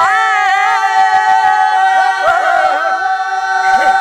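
Unaccompanied Dogri folk singing of a herders' bhakh: voices holding long, drawn-out notes, with short bends and ornaments near the start and again about two to three seconds in.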